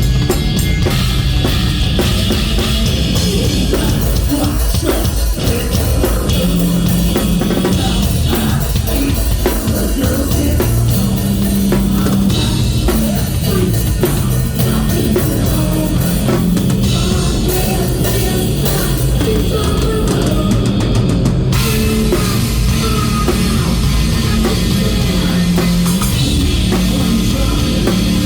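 Live heavy rock band playing loud and steady, with the drum kit to the fore.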